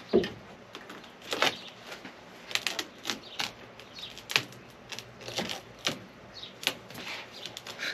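Irregular clicks and knocks of wooden boards and loose screws being pulled free and handled, about a dozen sharp taps spread unevenly, with no drill running.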